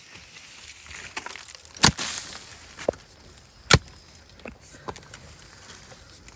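A long-handled hoe striking into red earth, digging out a banana plant with its roots. There are two loud blows about two seconds apart, with smaller knocks and scraping between.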